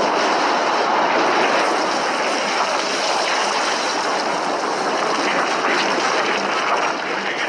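Steady, loud rushing roar of an anime power-up sound effect: the wind-and-energy aura noise of a character powering up, with no pitch or rhythm to it.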